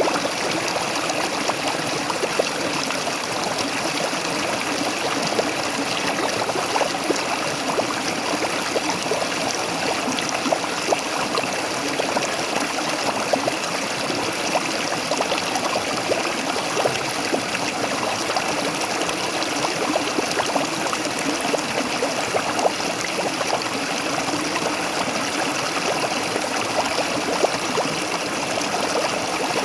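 Waterfall: a steady rush of falling water with constant small splashes and trickling.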